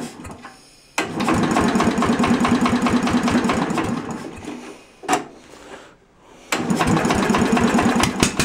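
Briggs & Stratton engine on a Simplicity garden tractor being cranked by its electric starter: a fast, even cranking from about one second in until about four and a half seconds, a click, a pause, then a second cranking attempt from about six and a half seconds in. The engine is cold and hard to start after a head gasket and spark plug repair.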